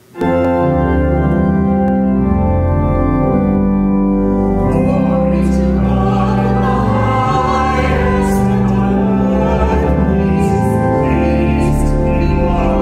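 Church organ starts abruptly a moment in and plays long held chords at a steady loud level. A woman's singing voice joins over it about five seconds in.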